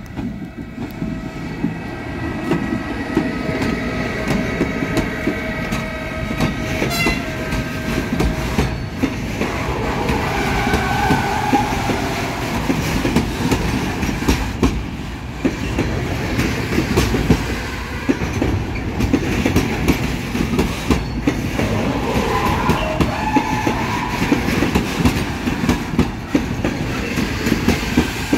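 Freight train hauled by a Siemens Vectron electric locomotive rolling in, with a steady whine for the first several seconds. Then a continuous rumble with wheels clicking over the rail joints and a couple of brief wheel squeals.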